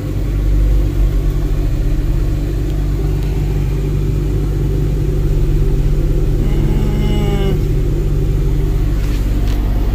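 Steady low rumble of a Nissan pickup's engine and road noise, heard from inside the cab as it rolls along and pulls up. A brief pitched sound comes about seven seconds in.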